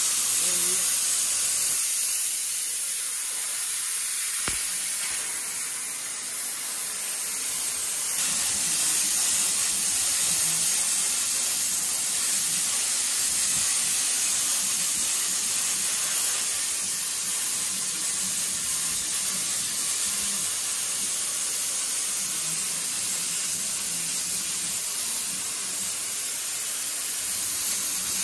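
Plasma cutter torch cutting steel plate on a CNC plasma table: a steady high hiss of the arc and gas jet.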